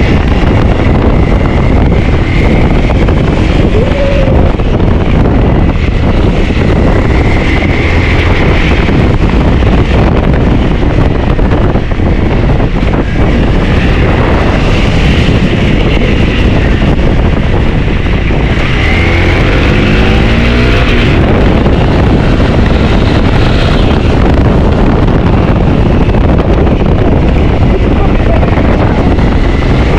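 Wind buffeting the microphone on a moving motorbike, with the engine and road noise running underneath. About two-thirds of the way through, a short pitched sound rises in pitch.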